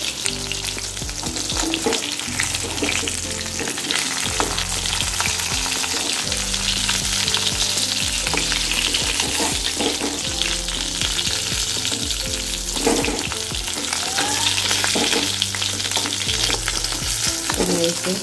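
Fish pieces shallow-frying in hot oil in a metal kadhai, sizzling and crackling steadily. A metal spatula clicks and scrapes against the pan now and then as the pieces are turned.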